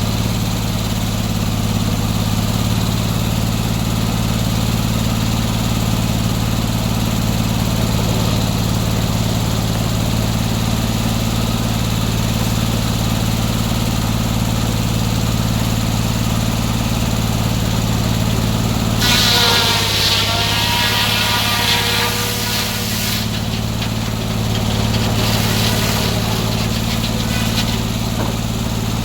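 Gas engine driving a circular sawmill, running steadily at speed. About two-thirds of the way through, a loud, harsh, wavering high-pitched sound rises over the engine for about three seconds, and a shorter one comes a few seconds later.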